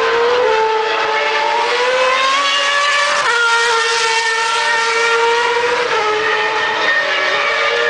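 Superleague Formula race cars' V12 engines running hard at speed, more than one car at once, their pitch climbing steadily as they accelerate, with a sudden step in pitch about three seconds in and a dip near six seconds.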